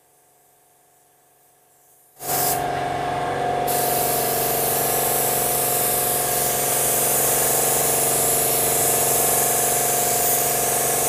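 YT160 (R500-type) LVLP paint gun spraying base coat at low air pressure, about 18 PSI. After about two seconds of near silence, a steady hiss of air and atomised paint starts suddenly and keeps on.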